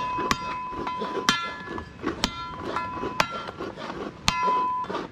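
Cane knife (machete) chopping the top off a hand-held green coconut with the back edge of its blade, about once a second: each blow is a sharp knock followed by the steel blade ringing.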